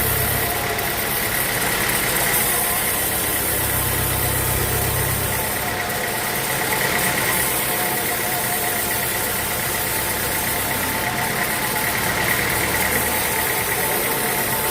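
Sawmill machinery running steadily: an even mechanical drone with a steady whine through it and a low hum that swells and fades every few seconds.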